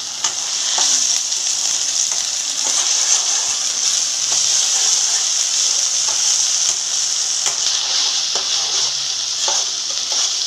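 Shallots and ginger-garlic paste sizzling steadily in hot oil in a kadai while being stirred with a spatula, which scrapes the pan a few times. They are sautéing to cook off the raw smell of the ginger-garlic paste.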